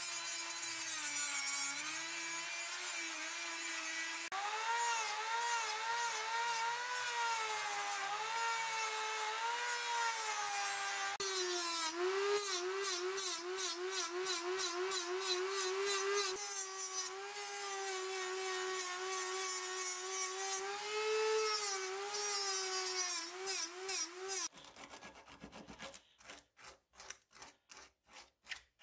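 Handheld rotary tool running with a steady whine that wavers in pitch as its small wheel is pressed onto the wooden handle of a dagger. Near the end the tool stops and a hand rubs the wood in quick even strokes, about three a second.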